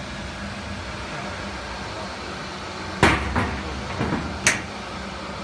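Metal electrical control cabinet door of a CNC router swung shut with a bang about three seconds in, then a second sharp click about a second and a half later as it is latched, over a steady low hum.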